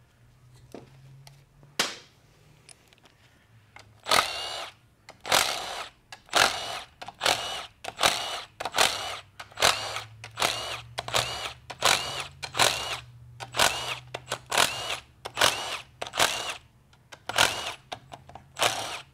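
Cordless power driver spinning in short bursts, about once a second, on a TH350 transmission's valve-body bolts, starting about four seconds in.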